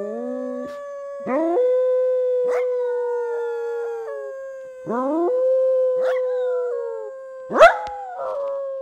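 A chorus of howling canids: several overlapping long howls, each rising quickly at its start and then held steady. A sharper, louder cry comes about seven and a half seconds in.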